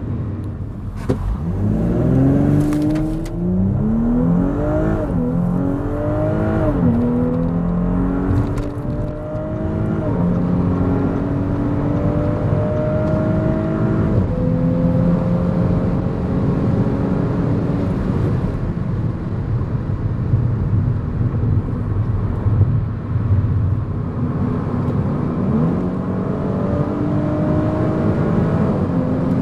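Audi S5 Sportback's turbocharged V6 at full throttle: the engine note climbs and drops sharply with quick upshifts through the first seven seconds or so, then pulls in longer, slower rises in the higher gears. A steady road noise runs underneath at speed.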